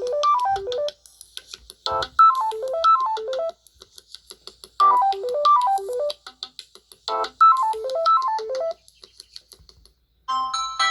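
Samsung Galaxy A03s ringtone playing: a short phrase of quick, bell-like synth notes stepping downward, repeated four times about every two and a half seconds. After a brief gap near the end, a different ringtone starts.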